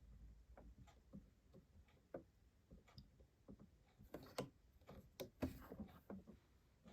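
Faint, irregular light clicks and taps of hands handling a sewing machine and a small oil bottle while a drop of oil is put in, a little louder in the second half.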